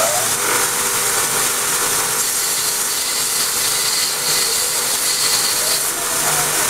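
Small bench belt grinder running, with a metal bar held against the moving belt: a steady grinding hiss that turns sharper from about two and a half seconds in until near six seconds.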